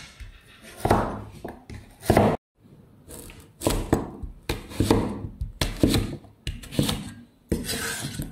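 Kitchen knife cutting peeled taro into chunks on a wooden chopping board: sharp strokes about once a second as the blade goes through the root and strikes the board.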